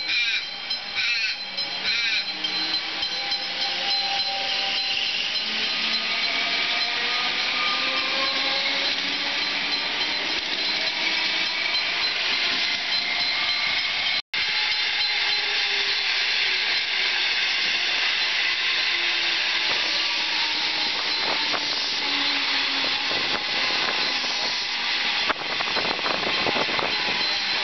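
Comeng electric suburban trains at a platform: traction motors whine in several gliding tones over wheel-and-rail noise and a steady hiss. The whine rises as a train pulls away, then, after a momentary break, falls as another train comes in. Near the end it rises again as a train moves off close by.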